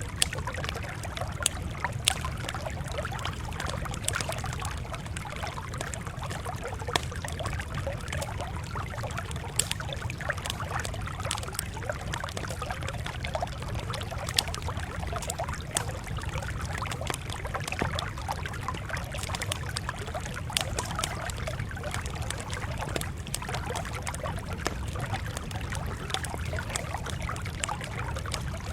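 Campfire crackling, with irregular sharp pops over a steady low rushing background.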